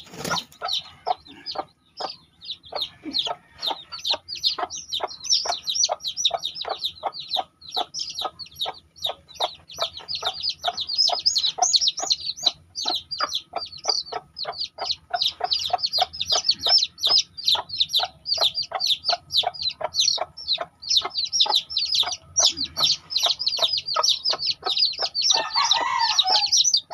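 Day-old chicks peeping without a break, short high downward-sliding calls several a second. A lower, louder call comes near the end.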